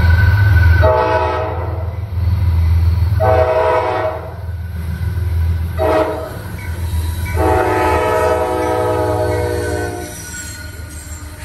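Locomotive air horn sounding the grade-crossing signal: two long blasts, a short one, then a final long one, over the low rumble of a passing train. It fades out near the end.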